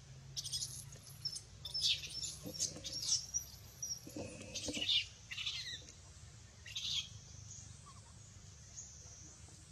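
Infant long-tailed macaque crying in quick runs of short, high-pitched squeaks, some falling in pitch, which thin out after about seven seconds.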